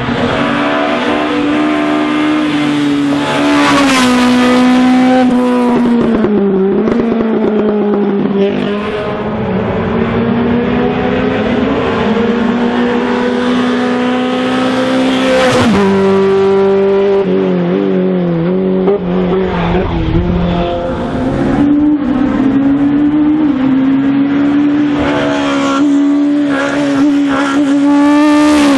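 Race-prepared touring cars on a hillclimb, one after another, engines at high revs under full throttle. The engine pitch climbs and then falls sharply several times as the drivers change gear.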